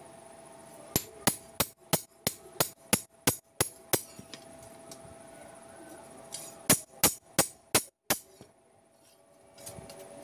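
Hand hammer striking a long steel knife blade, forged from a railroad rail clip, on an anvil. Sharp ringing blows come about three a second for some three seconds, then after a pause four more.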